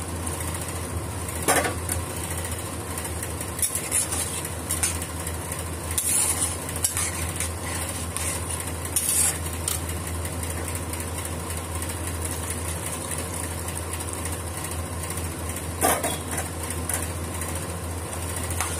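Milk pouring into a kadhai of boiled bottle gourd, then a steel spatula scraping and clinking against the pan as the mixture is stirred. A few sharp metal knocks of pots and utensils come through, loudest about a second and a half in and near the end. A steady low hum runs underneath.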